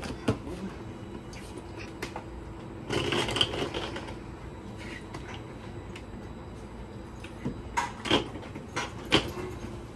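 Hard-shell suitcases knocking and scraping as they are lifted up into a train doorway. There are a few sharp knocks, about a second of scraping and rustling about three seconds in, and several bumps near the end, over a steady low hum.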